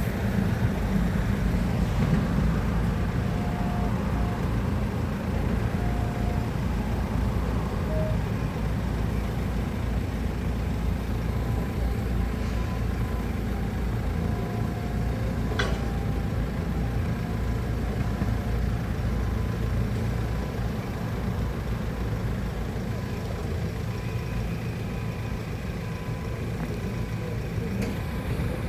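Heavy-equipment engine running steadily with a low rumble, with a few short faint beeps now and then.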